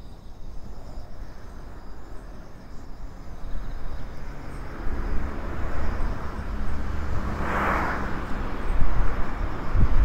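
Engine noise of a passing vehicle that grows louder over several seconds, over low wind rumble on the microphone.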